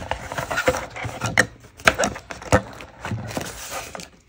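Small craft-supply packets being handled on a desk: light rustling with a scatter of sharp clicks and taps.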